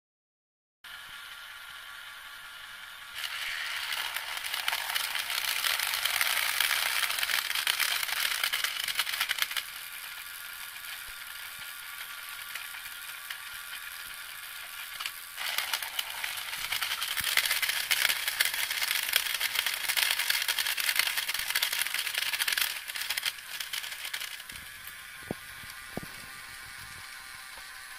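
LEGO Power Functions shredder running: motors whirring through plastic gears while the blades rattle and crunch through Shreddies cereal in two loud stretches of several seconds each. The crunching dies away near the end, leaving the steady whir and a few sharp clicks.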